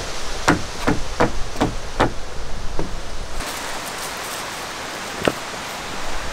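Work boots stepping on a wooden plank porch deck, a run of hollow knocks two to three a second. After about three seconds the footsteps give way to a steady outdoor hiss with a single wooden knock near the end.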